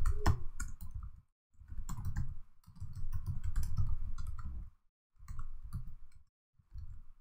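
Typing on a computer keyboard: quick key clicks in several bursts, with short silent gaps between them.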